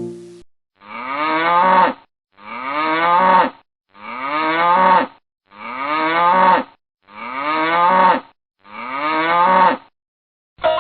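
A cow mooing six times, each moo about a second long and evenly spaced. The moos are identical, the same call repeated.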